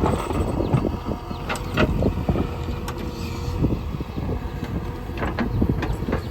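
JCB 3DX backhoe loader's diesel engine running steadily while it works, with scattered sharp knocks and clanks as it moves stones.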